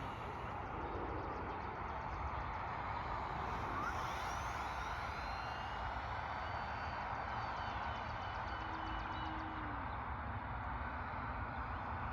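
Electric RC airplane motor and propeller whining in flight, its thin high tone slowly sliding up and down in pitch as the plane moves, over a steady hiss.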